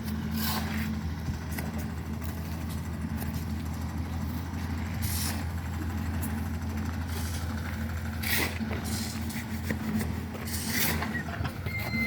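An engine running steadily with a low hum, and a few short noises cutting through it at intervals.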